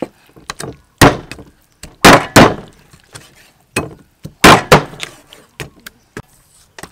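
Meat cleaver chopping a raw pork leg on a wooden chopping block: several heavy chops, some in quick pairs, with lighter knocks between.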